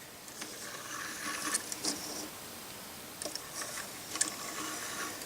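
Small plastic LEGO parts being handled, with a few faint clicks and rattles.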